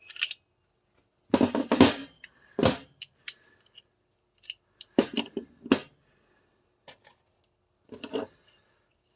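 Clicks and metallic clacks of an airsoft 2011 pistol being handled and taken apart, coming in short clusters with pauses between them.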